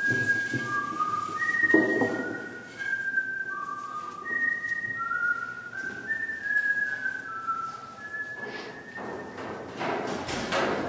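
A person whistling a slow tune of held notes that step up and down. Occasional knocks and rustles sound underneath, with a louder clatter near the end.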